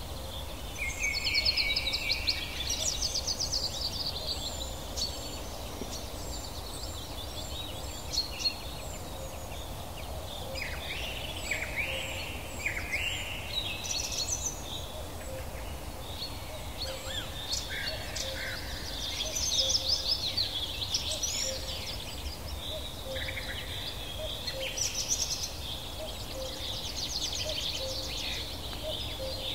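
Several wild birds calling all through: fast high trills, short chirps and quick descending whistles, overlapping one another over a steady low background rumble.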